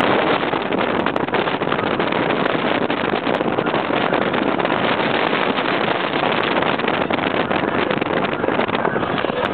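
Hurricane-simulator wind blowing at about 110 to 125 km/h: a loud, steady rush of air buffeting the microphone.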